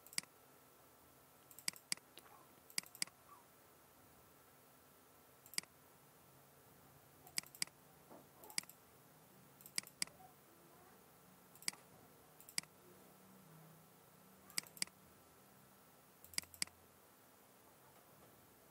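Computer mouse button clicking: sharp single clicks and quick double clicks every second or two, over a faint steady hum.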